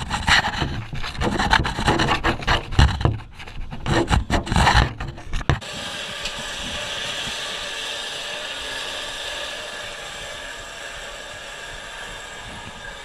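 Irregular rubbing, scraping and knocking from gloved hands and boots on an aluminium ladder during a climb down. About five and a half seconds in this stops, and an electric vehicle winch runs steadily, reeling in its taut steel cable.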